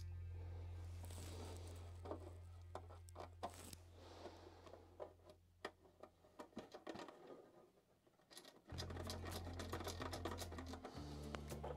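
Background music fades out, leaving scattered small clicks and taps of a hard plastic model-truck cab being handled and parts pressed into it; the music comes back in suddenly near the end.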